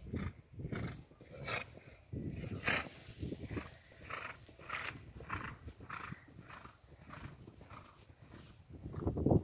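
Ridden horse galloping across a grass paddock, a faint rhythmic beat about every 0.6 s in time with its strides. A low rumble of wind on the microphone comes and goes beneath it.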